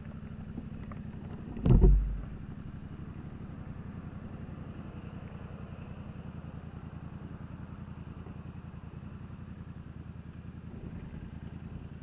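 Yamaha MT-07's parallel-twin engine with an aftermarket Jeskap GP carbon exhaust running near idle as the bike rolls slowly, a steady low throb. A short loud burst comes about two seconds in.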